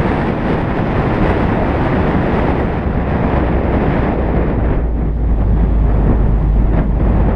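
Wind rushing over the microphone of a car-mounted GoPro HERO3+ Black, mixed with road rumble from the moving car. A deep rumble grows stronger about three seconds in.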